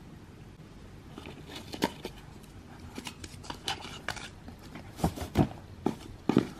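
Hands handling a gift box and pulling its ribbon bow loose: scattered light rustles and taps, with a few sharper knocks of the box about five seconds in.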